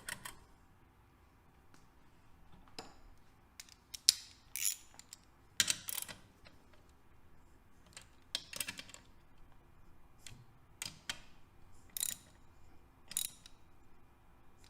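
Intermittent light metallic clicks and knocks as small engine parts and tools are handled and fitted into an engine case, about ten separate taps spread irregularly over the stretch.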